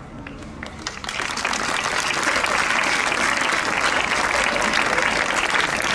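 Audience applauding: a few scattered claps at first, swelling about a second in to full, steady clapping.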